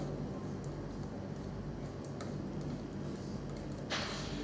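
A few light ticks of a small screwdriver working the screw of a RAMPS board's screw terminal to clamp a wire, with a brief scrape near the end; a steady low hum underneath.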